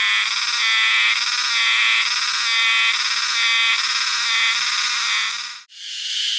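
Chorus of Hime-harusemi cicadas (Euterpnosia chibensis) singing, the loud high song swelling and easing about once a second. Near the end it cuts abruptly to a different cicada's steady high buzz.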